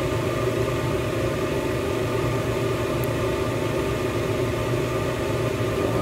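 Electric blower fan of a homemade hybrid wood and waste-oil stove running, a steady hum with a few constant tones.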